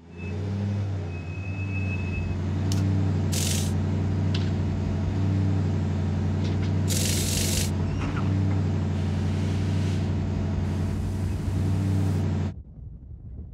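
A motor running steadily with a low, even hum, broken twice by short bursts of air hiss, about three and about seven seconds in. The hum cuts off suddenly near the end.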